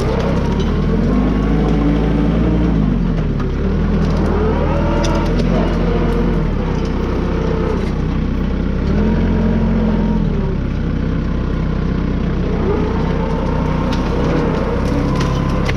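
Branson compact tractor's diesel engine working under load while clearing brush, its engine speed rising and falling several times, with a few sharp cracks.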